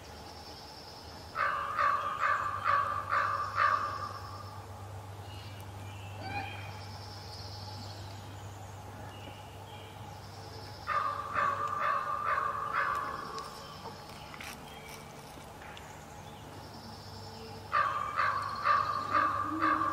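Great horned owl hooting: three bouts of about five or six hoots each, several seconds apart.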